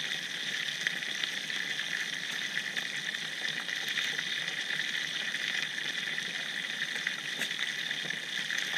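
Chicken wings frying in sunflower oil in a pan over a campfire: a steady sizzle with small scattered crackles.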